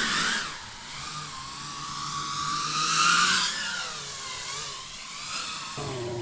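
7-inch FPV quadcopter on eight-blade propellers (DALPROP folding blades on 3D-printed hubs) whining in flight, its pitch rising and falling with the throttle and loudest about three seconds in. Near the end a lower motor hum joins in.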